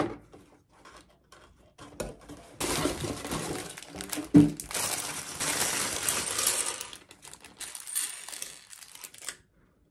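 Plastic bags of LEGO bricks crinkling and being torn open, with loose plastic bricks clattering and clicking onto a tabletop. A single sharp knock stands out about four and a half seconds in.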